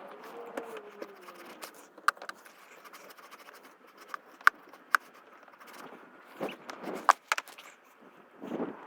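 A 1/4-inch drive tool with a 4 mm hex bit working a bolt loose: scattered sharp metallic clicks and scrapes, with the loudest ticks about 2, 4.5, 5 and 7 seconds in and a couple of duller knocks near the end.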